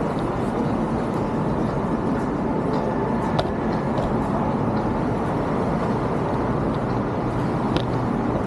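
Steady city street ambience: traffic noise from a busy avenue-side street, with a couple of brief sharp clicks, one about three and a half seconds in and another near the end.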